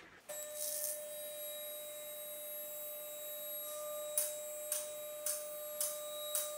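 Two-post vehicle lift raising an SUV: the electric hydraulic pump runs with a steady whine, and from about four seconds in the arms' safety locks click regularly, about twice a second, as the carriages climb.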